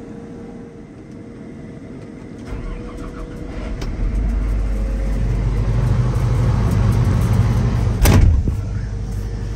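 New Holland combine's engine coming up from idle about two and a half seconds in and building to a steady high-speed run, with one loud clunk about eight seconds in.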